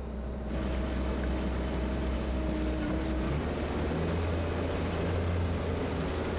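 Water rushing and splashing as a person in a wetsuit is towed fast through a lake on a tow bar, over a steady low hum. A faint steady tone in the hum stops about three seconds in.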